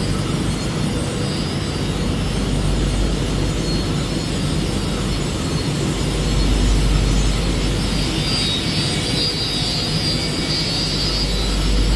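Steady drone of factory machinery running in a large workshop hall. A deeper rumble swells about six seconds in and again near the end.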